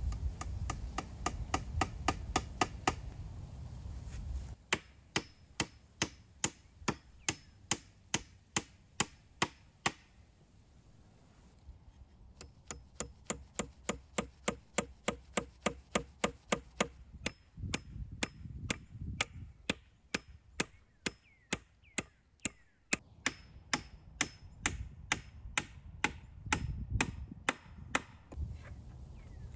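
Hatchet being used as a hammer to drive long nails into wooden chair-frame poles. The strikes come in steady runs of about two to three a second, each with a short ringing knock, broken by brief pauses.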